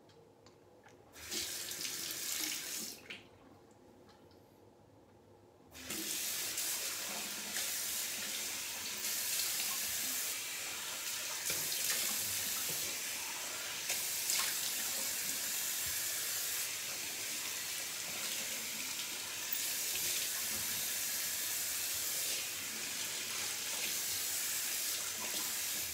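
Bathroom sink tap running briefly, then turned on again and left running while water is splashed on the face to rinse off shaving lather.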